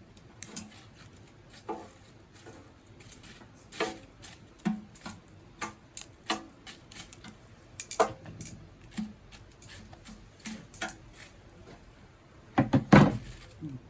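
Irregular clinks and knocks of cookware and utensils being handled, with a louder cluster of clatter near the end.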